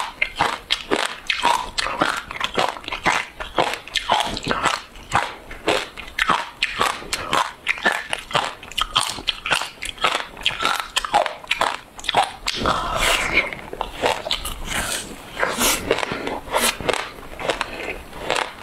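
Frozen passion fruit pulp and seeds being bitten and chewed, a dense, irregular run of sharp icy crunches and cracks, with a longer, denser stretch of crunching about two-thirds through.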